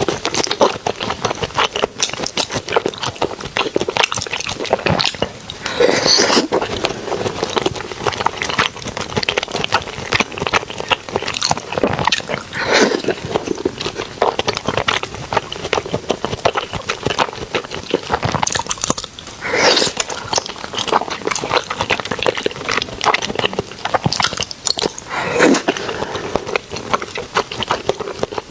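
Close-miked eating: steady chewing and biting of food, with a dense run of sharp crackles and a few louder bites spread through.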